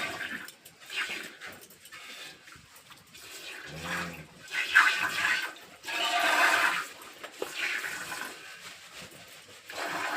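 Milk squirting from a cow's teats into a pail during hand milking, in a series of separate hissing spurts that come at irregular intervals.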